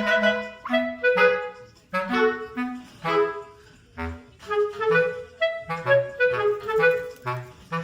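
Background music: a light, bouncy tune of short woodwind-like notes, about two a second, over a plucked bass line.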